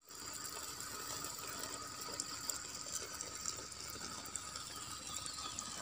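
Mini garden sprinkler shooting a steady jet of water onto the ground, a constant hiss with scattered small ticks. The head is not spinning: the water pressure is too weak to turn it, so it only squirts straight at the durian tree.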